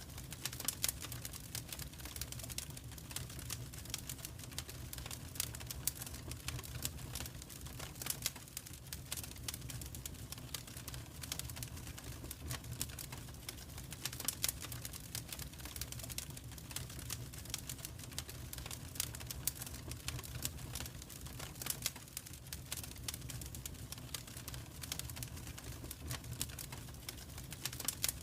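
Wood fire burning in a fireplace, crackling with many irregular sharp pops over a low steady rumble.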